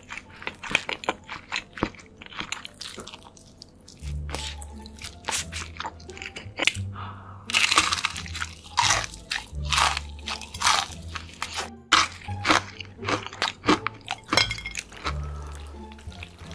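Crisp fried chicken bitten and chewed close to the microphone: a dense run of sharp crunching crackles, loudest in the middle. Background music with a steady bass line plays under it.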